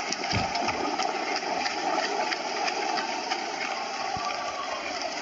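A small engine running steadily at low speed, with scattered light clicks over it.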